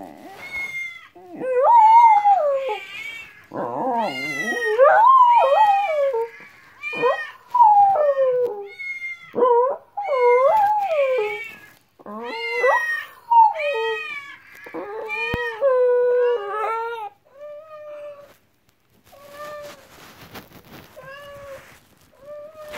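Dog howling and whining, a long run of wavering calls that rise and fall in pitch, giving way near the end to quieter, shorter whines.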